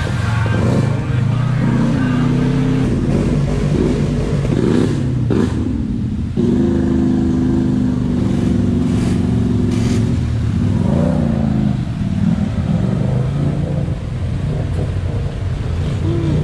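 ATV and side-by-side UTV engines revving as they churn through deep mud and flooded trail water. The engine pitch rises and falls with the throttle, then holds steady for a few seconds midway.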